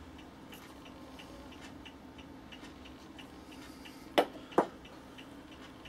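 Two sharp wooden knocks about four seconds in, less than half a second apart, as a hardwood block is handled on the workbench. Under them a faint, even ticking goes on, about two or three ticks a second.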